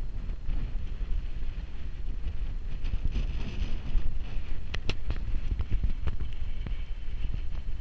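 Wind buffeting the microphone as a steady low rumble, with a few sharp clicks about five seconds in.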